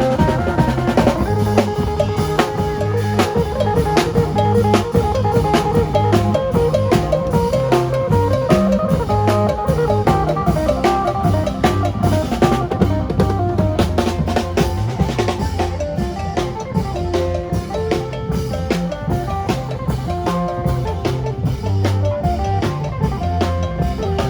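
Isan lam phloen band music: a fast plucked phin melody over a drum kit and a low bass line, with a steady danceable beat.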